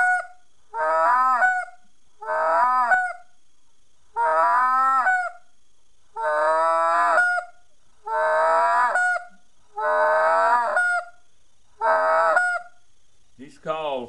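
Short-reed acrylic goose call with a tone chamber, blown in a series of about nine goose notes, roughly one every one and a half seconds. Each note jumps up in pitch at its end as the reed breaks over.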